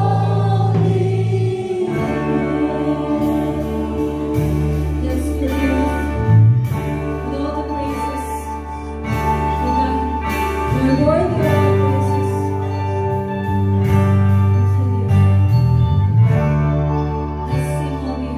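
A worship band playing a slow gospel song with guitar and a steady bass under sustained chords, with some singing.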